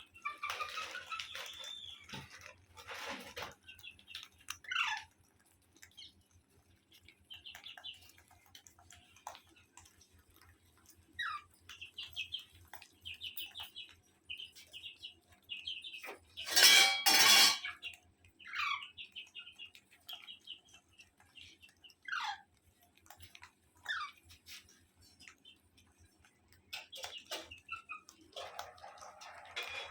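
Parrot calling: a run of short chirps and chattering calls with several quick falling whistles, and one louder harsh burst about halfway through.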